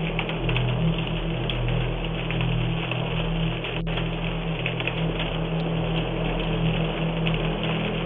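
Large fire burning with dense, continuous crackling over a steady low hum, picked up through a doorbell camera's small microphone.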